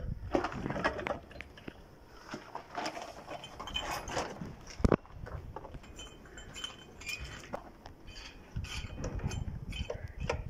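Irregular metal clinks, knocks and rattles as a core drill stand is handled and fixed down over its anchor bolt on a concrete floor, with one sharper knock about halfway through. The drill motor is not running.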